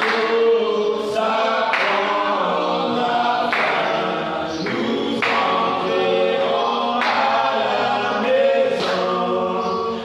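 A man singing a worship song unaccompanied into a handheld microphone, with long held notes.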